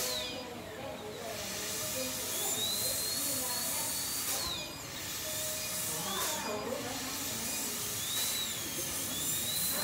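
High-speed dental handpiece (air-turbine drill) running with the hiss of its air and water spray, its high whine rising and falling with load. It winds down and stops briefly near the start, just past four seconds and again around six and a half seconds, then spins back up.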